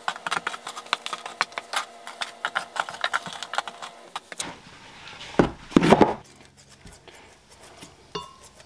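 Small pieces of old soft-plastic fishing bait clicking and rattling as handfuls are gathered and dropped back into a plastic bin, followed by a few heavier knocks as the container is handled and set down.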